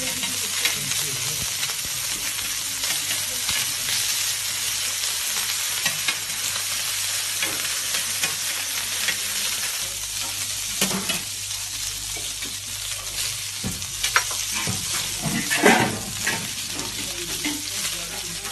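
Rows of köfte frying on a hot flat griddle with a steady sizzle of spitting fat. In the second half come a few sharper clicks and knocks of metal tongs working the meat.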